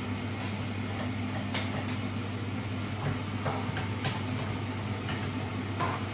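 A metal spatula tapping and scraping in a wok a few times over a steady low mechanical hum.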